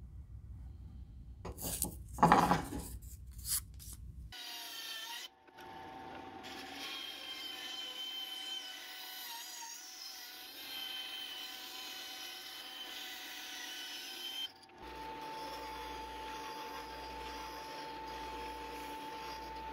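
Pencil strokes scratch across a maple block, the loudest about two seconds in. A band saw then runs steadily, cutting the figured maple lure blank, for about ten seconds. From about fifteen seconds in, a disc sander runs with a steady hum as the maple blank is shaped against the spinning disc.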